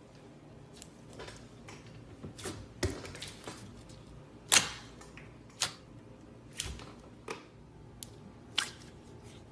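Slime being pressed and worked by hand, giving irregular sharp pops and clicks, about eight in all. The loudest comes about halfway through.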